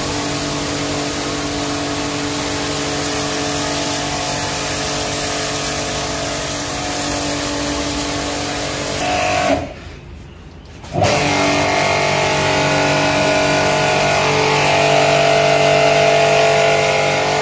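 Portable electric pressure washer running with a steady motor hum under the hiss of its high-pressure water jet. About ten seconds in it cuts out for about a second, then starts up again and runs steadily.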